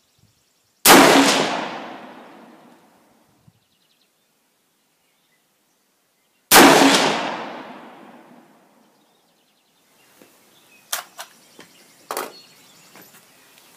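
Two rifle shots from a 6.5 Grendel AR-15 with a 16-inch fluted barrel, about five and a half seconds apart, each ringing out and dying away over about two seconds. Near the end come a few light clicks and knocks.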